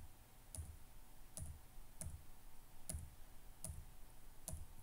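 Faint, sharp computer clicks repeated about every three-quarters of a second: an input bit being toggled over and over in PLC programming software, each click stepping the add and subtract counters.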